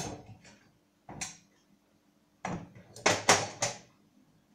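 Kitchen clatter as a saucepan is fetched: cupboard or drawer and cookware knocking. One short knock comes about a second in, then a run of several clatters from about two and a half seconds to nearly four.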